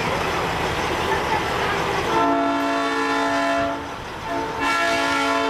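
Semi truck's air horn blown in two long blasts, each sounding several tones at once as a chord. The first comes about two seconds in and the second near the end. Before the horn there is the low rumble of the truck's engine.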